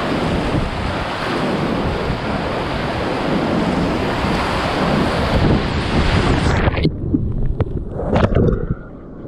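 Loud, steady rushing of river whitewater, with wind buffeting the microphone. About seven seconds in, the rushing drops away abruptly, leaving low rumbling and a few sharp knocks.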